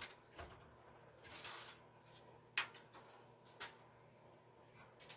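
Faint handling of broken plastic parts of a Commodore 64's case: scattered light clicks and a brief rustle, with a short cluster of clicks near the end.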